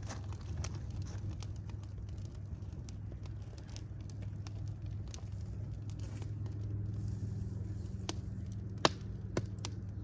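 Fire crackling over a steady low rumble, with scattered small pops and one loud, sharp pop near the end.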